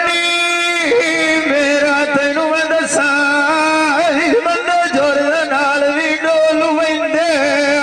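A man singing a Punjabi dhoola folk song into a handheld microphone. He draws out long notes with a wavering, ornamented pitch, and a long held note opens the passage.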